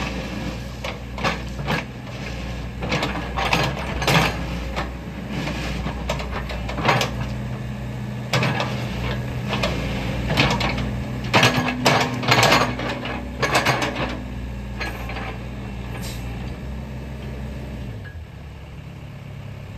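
Sany SY75C mini excavator's diesel engine running steadily while the boom and bucket are worked, with repeated sharp metal clanks and knocks from the bucket and arm linkage. The engine note drops near the end.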